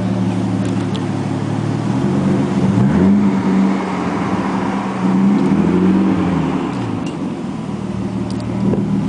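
Nissan Skyline R32's engine idling and being revved in slow, moderate blips, its pitch rising and falling twice, with another rev starting near the end.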